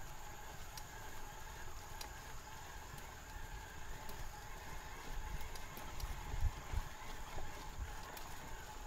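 Mountain bike riding over rough trail: irregular low knocks and rumble from the bike and mount as it rolls over the ground, heaviest about two-thirds of the way through, with scattered faint ticks. A faint steady hum lies underneath.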